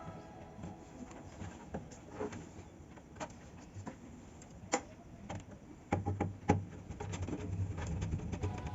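Scattered light clicks and taps of computer parts being handled during a PC build. The sharpest clicks come about five seconds in and again about a second and a half later, with a low hum under the later part.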